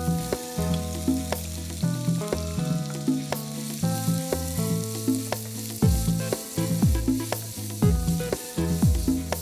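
Chopped onions sizzling in hot coconut oil in a non-stick kadai as they are tipped in and stirred with a wooden spatula, the frying hiss steady throughout. Background music plays underneath, with a low beat coming in about six seconds in.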